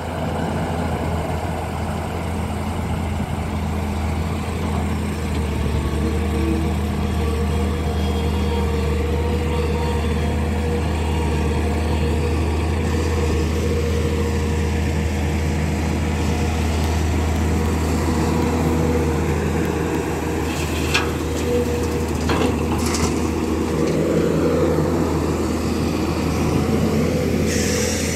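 SANY SY210C excavator's diesel engine running steadily as the machine digs and loads. A couple of sharp knocks come about three-quarters of the way through, and a brief rush of hiss near the end.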